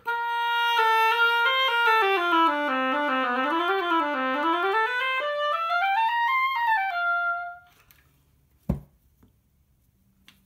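Oboe played on a freshly clipped and scraped reed to test it: a stepwise phrase that runs down into the low register, climbs high and ends on a held note, lasting about seven and a half seconds. About a second after the playing stops, a single sharp knock.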